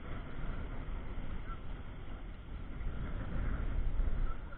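Sea water surging and sloshing, heard muffled as a deep rumble through a camera's waterproof housing; it swells louder about three seconds in.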